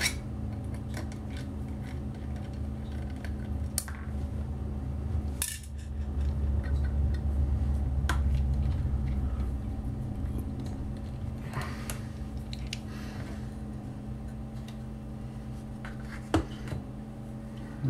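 Small screwdriver and hard-drive mounting screws clicking and clinking now and then against a laptop hard drive's metal mounting bracket, over a steady low hum.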